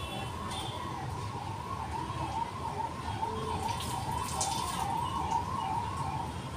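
A siren wailing in a smooth warble, its pitch swinging up and down about twice a second, cutting off near the end.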